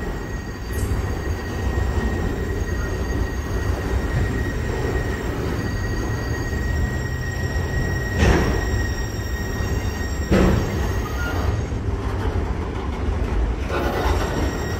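Freight train of autorack cars rolling past: a steady rumble of steel wheels on the rails with a thin, high, steady squeal through the first half, and two loud clunks about eight and ten seconds in.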